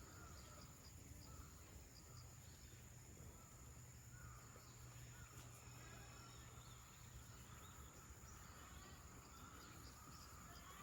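Faint outdoor ambience: a steady high-pitched insect trill throughout, with scattered short faint calls of distant birds.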